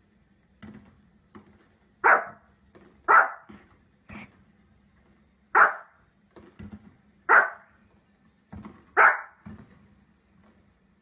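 Small long-haired dog barking: five loud, sharp, single barks spaced a second or two apart, with softer yaps between them.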